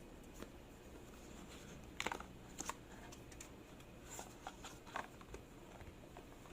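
Packaging being handled: a few short rustles and clicks, the loudest about two seconds in and more near the middle.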